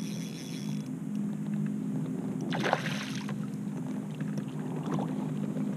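A hooked smallmouth bass splashing once at the surface beside a kayak, about two and a half seconds in. A steady low hum runs underneath, a brief high whir stops about a second in, and a few light clicks come near the end.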